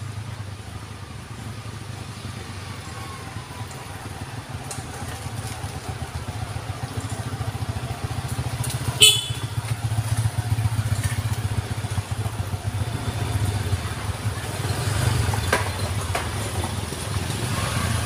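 Small motorcycle engines climbing a hill bend, their steady hum growing louder as the bikes approach. A short, sharp horn beep sounds about halfway through.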